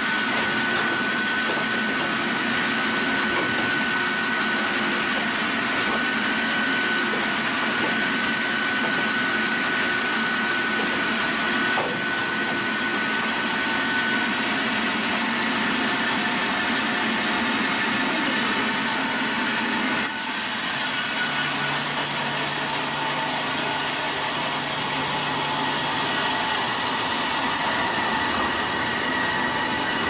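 Automated log sawmill running and sawing through a log: a continuous loud mechanical noise with a steady high whine held at one pitch. The sound shifts abruptly about twenty seconds in.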